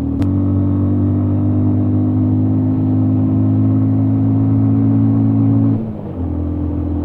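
Bajaj Avenger 160's single-cylinder engine running steadily under way at a constant pitch, with a sharp click just after the start. It eases off briefly about six seconds in, then pulls steadily again.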